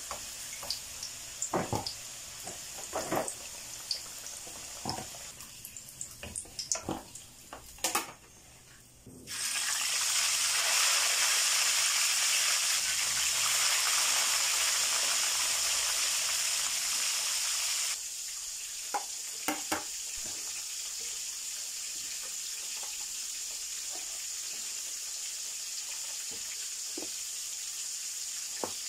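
Oil sizzling in a frying pan: saba bananas frying, with a plastic spatula knocking and scraping against the pan, then about a third of the way in a much louder, dense sizzle of whole tilapia frying in hot oil. About halfway through it drops suddenly to a quieter steady hiss with a few clicks.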